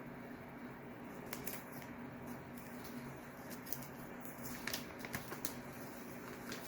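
Packaging and card stock being handled: scattered light clicks and rustles over a steady low hum.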